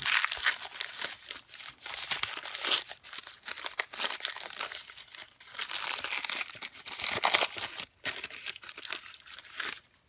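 Packing material crinkling and crumpling as a parcel is unwrapped by hand, in irregular bursts with short pauses, dying away just before the end.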